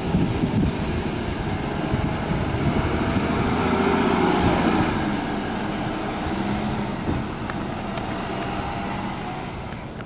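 A city transit bus driving past: engine and tyre noise building to loudest about four seconds in, the engine note dropping in pitch as it passes, then fading away.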